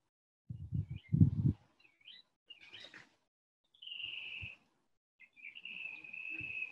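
Garden birds singing: short chirps, then two long, steady high notes of about a second each in the second half. A couple of low, muffled bursts about a second in are the loudest sound.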